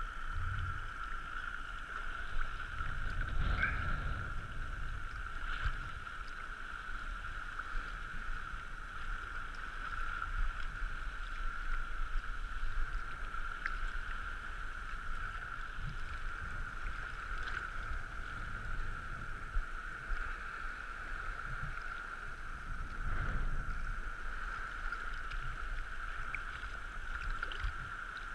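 Sea water lapping and sloshing around a camera held at the water's surface, over a steady hiss, with stronger low swells about three seconds in and again near twenty-three seconds.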